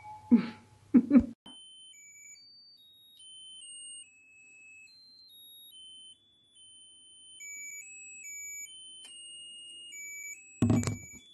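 A musical lotus-flower birthday candle playing its tinny electronic tune: a string of thin, beeping single notes that step up and down in pitch.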